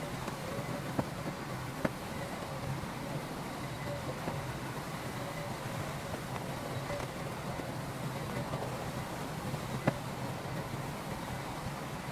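Heavy earthmoving machinery with its diesel engine running steadily, a low even rumble. Three sharp metallic knocks come through it: about a second in, just after, and the loudest near the end.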